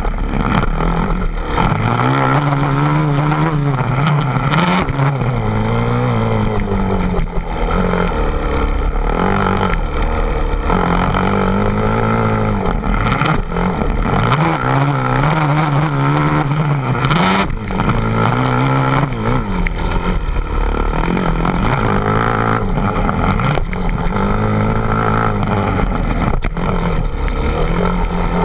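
An engine running loud, its pitch repeatedly rising and falling as it revs up and eases off.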